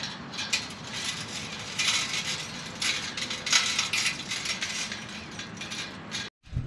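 Metal chains of a portable disc golf basket clinking and jingling in irregular small clinks as they are handled and clipped on one by one. The sound cuts off suddenly near the end.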